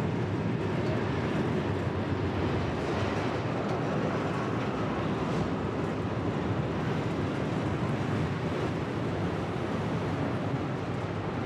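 Vintage Oslo tram running along the track: a steady rumble of wheels on rail and running gear.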